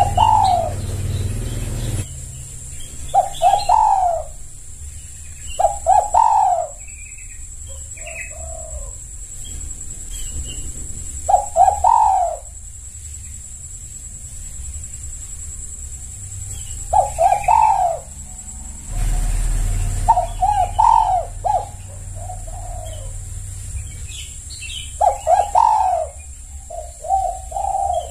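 Spotted dove (tekukur) cooing: short phrases of a few deep coo notes, repeated every few seconds, with a faint steady hiss behind.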